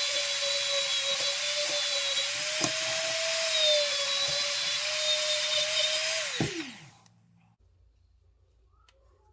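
Dremel rotary tool running at a steady high speed, polishing a knife blade, then switched off about six and a half seconds in, its whine falling in pitch as it spins down to a stop.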